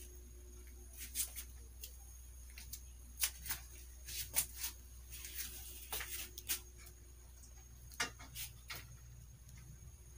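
Quiet room tone with a steady low hum, broken by scattered faint clicks and light taps at irregular intervals.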